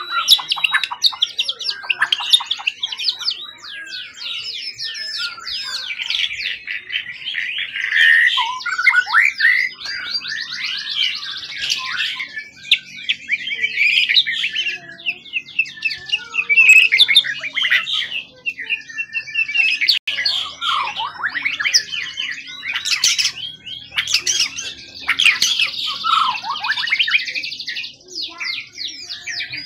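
A wild-caught songbird singing a long, varied song of rapid trills, chirps and whistles with hardly a pause.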